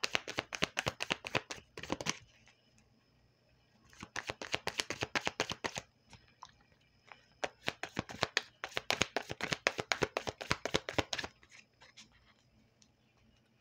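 A tarot deck being shuffled by hand: three bouts of rapid card flicking a couple of seconds apart, the last and longest from about eight to eleven seconds in.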